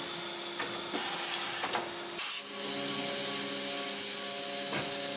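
Automatic metal-cutting lathe running: a steady mechanical hum and hiss with a few light clicks. About two and a half seconds in the sound changes abruptly, and a high steady whine joins the hum.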